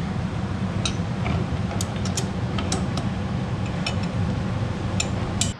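Hand wrench snugging driveshaft yoke bolts, giving sharp metal clicks every half second or so, over a steady low hum.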